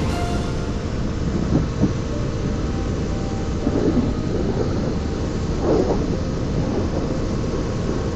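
Dual-sport dirt bike running steadily at highway speed, its engine drone under heavy wind rush on the riding microphone, with a few brief louder gusts.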